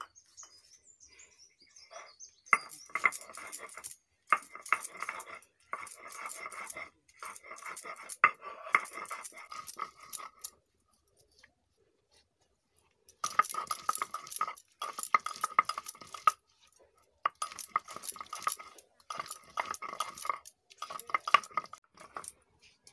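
A stone muller rubbed back and forth on a flat grinding stone (sil-nora), crushing tomatoes into paste. The strokes come one after another, each about a second long, with a pause of a couple of seconds about halfway through.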